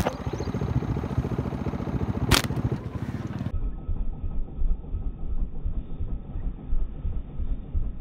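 Low, uneven rumble and buffeting on the microphone, with one sharp click about two and a half seconds in.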